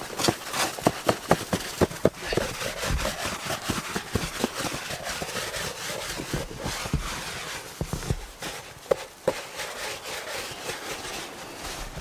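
Gloved hands scooping and scraping deep snow, making a run of crunches. The crunches come thick and fast in the first couple of seconds, then more sparsely over a rough rustle.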